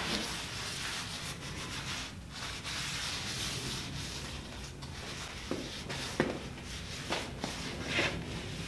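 Rag scrubbing the metal flange of the lathe's head cover clean with acetone: steady rubbing strokes, with a few light knocks in the second half.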